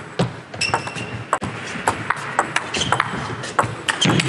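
Table tennis ball in a fast rally, struck by rubber-faced paddles and bouncing on the table in sharp clicks, about two to three a second. A louder, lower sound comes near the end.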